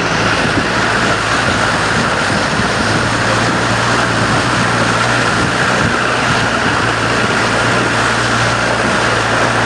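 Jeep engine running steadily through floodwater, under a constant loud rush and splash of water.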